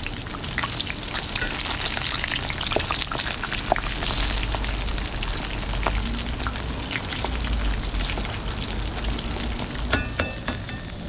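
Food frying in a hot pan: a steady sizzle full of fine crackles, with a few sharper clinks near the end.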